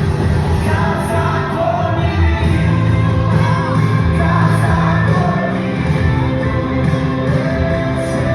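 Live worship music with a band and a sung voice filling a large hall, loud and steady, with some shouts from the crowd.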